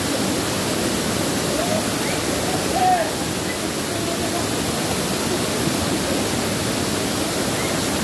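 Waterfall pouring over a rock slab into a pool: a steady rush of water.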